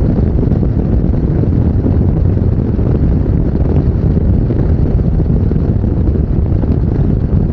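Wind buffeting an unshielded lavalier microphone on a Yamaha NMAX 155 scooter riding at speed, heard as a steady, loud low rumble.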